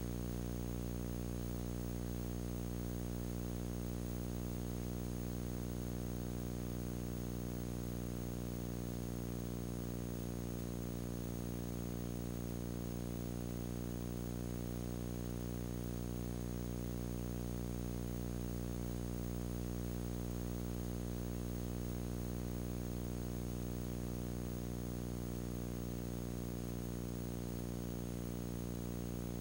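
Steady electrical hum with many evenly spaced overtones, with hiss over it. It never changes: a hum on the old videotape's soundtrack rather than any sound from the scene.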